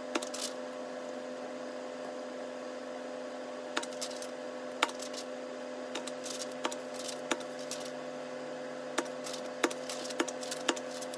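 Sheets of printed paper being handled and flipped through, making short, sharp crackles and snaps at irregular intervals over a steady low hum in the room.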